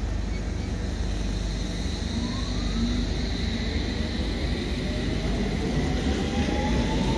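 London Underground S7 Stock train pulling away from the platform over a steady rumble, its traction motors starting a whine about two seconds in that slowly rises in pitch as the train accelerates.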